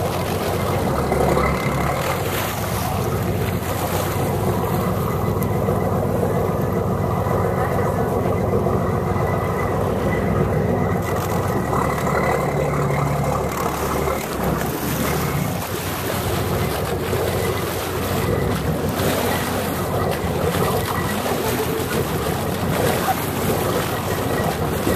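A boat's engine running steadily under wind and water noise.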